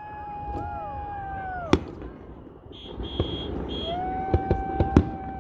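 Aerial fireworks shells bursting over a lake as sharp bangs: one loud crack about two seconds in, then a rapid string of bangs in the last second and a half. Two long, steady horn blasts sound along with them, the first ending just before two seconds in and the second starting about four seconds in.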